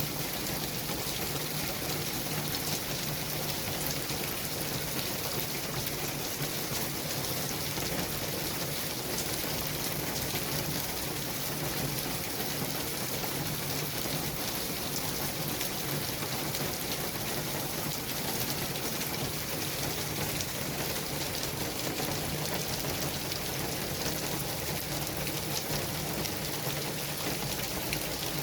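Steady city traffic noise: an even hiss that washes like rain, with a low steady hum underneath and no single vehicle standing out.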